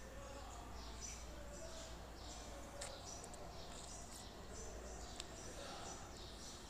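Small birds chirping faintly over and over in the background, with two light clicks about three and five seconds in.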